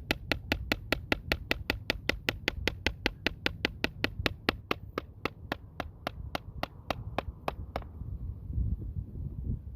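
Rapid, evenly spaced clicking, about five clicks a second, over a low rumble; the clicking stops abruptly about eight seconds in.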